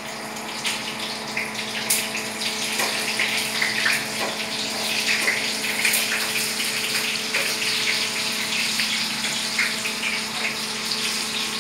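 Food frying in hot oil in a pan, a steady sizzle with scattered crackles and pops, over a steady low hum.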